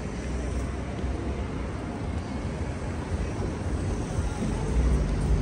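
Outdoor street ambience on a seafront promenade: a steady low rumble under an even hiss. A low steady hum comes in near the end.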